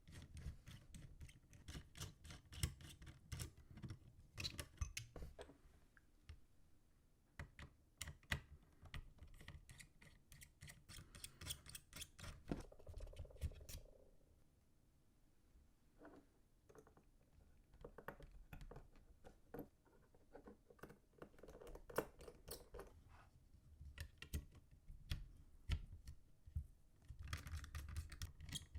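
Quiet handling of computer parts: a run of light clicks, taps and small rattles, fewer around the middle.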